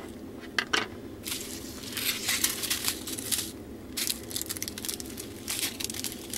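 Small clear plastic bags of resin diamond-painting drills crinkling in the hands, with the drills inside rattling, in several short stretches of handling.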